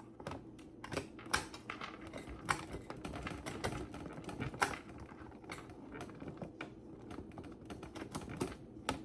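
Irregular small clicks and taps, several a second with a few louder ones, of hands handling plastic kitchen containers and packaging while restocking.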